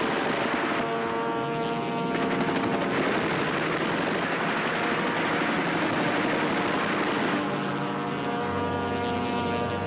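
Massed warplane engines running as a loud, steady drone, with a pitched engine note standing out twice, about a second in and again near the end.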